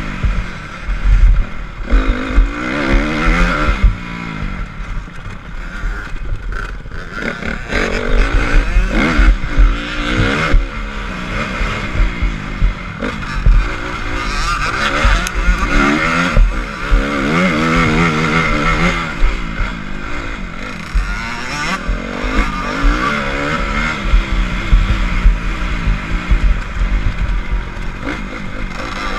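Honda CRF250 motocross bike's four-stroke single-cylinder engine under a rider, revving up and falling back again and again as it is ridden hard around the track and shifted through the gears. Heavy wind buffets the microphone.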